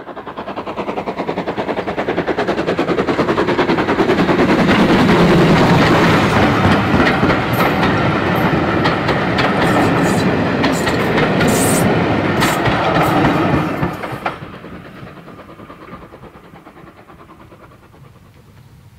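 Steam train passing at speed: rapid locomotive exhaust beats build to a peak, then the coaches go by with sharp clicks of wheels over the rail joints. The sound cuts off abruptly about fourteen seconds in, leaving a much quieter background.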